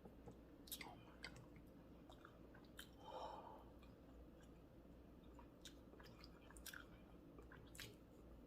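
Faint chewing by a person eating, with scattered soft mouth clicks and a brief soft sound about three seconds in.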